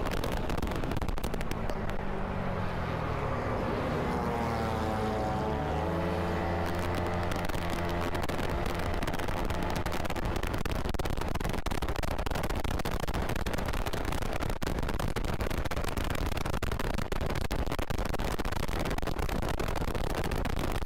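Riding noise on a Kymco KRV 180 scooter: a steady rush of wind and road noise, with an engine note that drops in pitch and then climbs again during the first several seconds.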